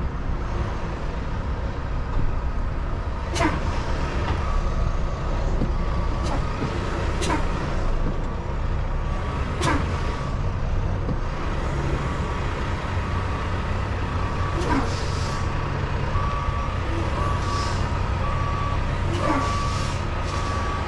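Semi truck's diesel engine running low while the rig reverses, its backup alarm beeping about once a second. About five short, sharp, falling sounds cut through at intervals.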